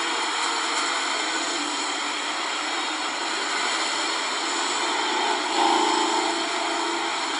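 Steady rushing noise with a faint low hum beneath it, swelling briefly with a higher tone about five and a half seconds in.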